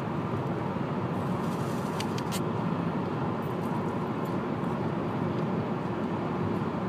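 Steady car cabin noise, with a few short crisp crunches about one and a half to two and a half seconds in as a Granny Smith apple is bitten and chewed.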